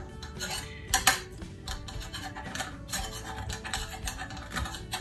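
A metal utensil scraping and clinking against a metal skillet as a slice of frittata is pried out, with the sharpest clinks about a second in and again around three seconds. Soft background music plays underneath.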